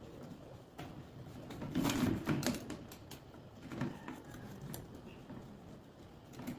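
Scattered light clicks and knocks, like objects being handled in a small room, loudest about two seconds in and again briefly near the four-second mark.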